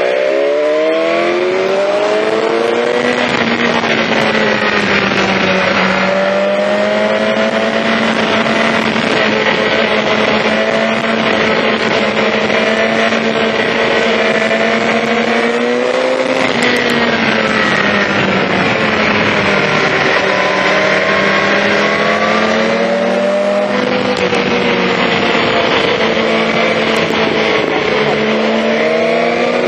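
BMW S1000XR inline-four engine breathing through an Akrapovic exhaust, running under way with its pitch rising and falling several times as the throttle is opened and closed.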